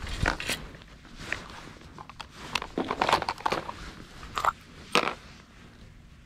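Fishing tackle being handled close to the microphone: irregular crinkling, rustling and clicks, with the sharpest clicks about three and five seconds in.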